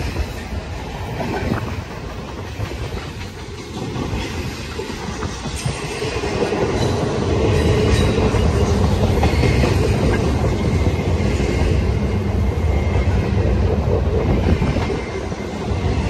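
Empty intermodal well cars of a freight train rolling past close by: a steady rumble of wheels on rail with clattering over the joints, growing louder about six seconds in.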